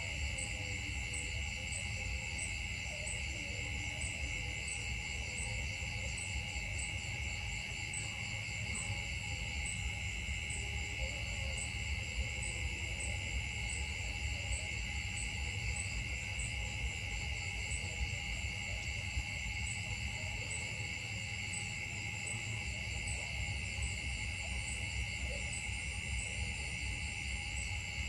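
Steady chorus of insects in the forest: a continuous shrill buzz, with a higher note pulsing evenly, a little under twice a second, over a low rumble.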